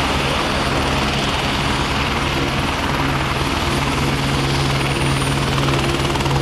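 Helicopter engine and rotors running: a steady, loud drone with a faint high whine over it.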